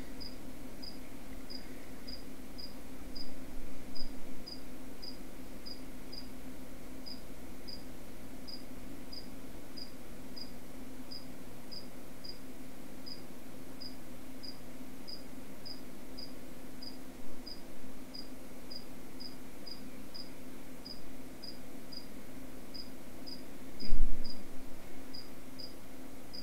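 A cricket chirping steadily, short high chirps about one and a half a second, over a steady low hum. A few soft handling knocks break in, with a louder knock near the end.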